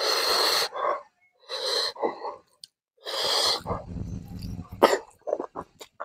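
Three loud, breathy blasts from the eater's mouth and nose, like hard sniffs or exhalations, about a second and a half apart, then a brief low rumble and a few small wet chewing clicks near the end.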